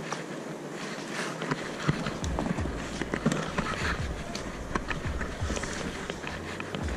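Close handling noise: rustling with scattered light knocks and clicks as a plastic box and gear are handled by hand, over a low rumble.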